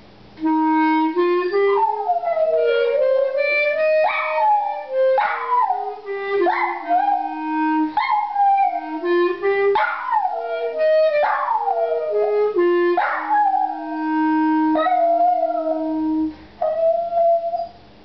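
A small dog howling along to a wind instrument playing slow, held, stepwise notes. The howls come again and again, each sliding down in pitch. The instrument stops near the end, and the dog gives one last howl on its own.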